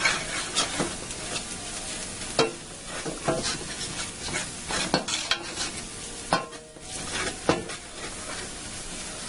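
A spatula scraping and stirring around a large stainless steel frying pan in irregular strokes, over the low sizzle of a flour-and-margarine roux with onion and garlic frying as it cooks.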